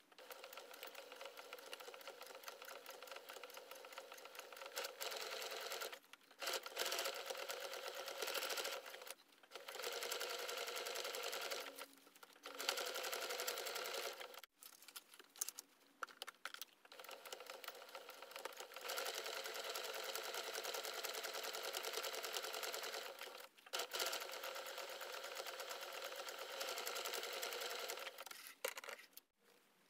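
Compact electric sewing machine stitching around the edge of a fabric pouch. It runs in several bursts of a few seconds each with a fast, even needle rhythm, stopping briefly and starting again between them.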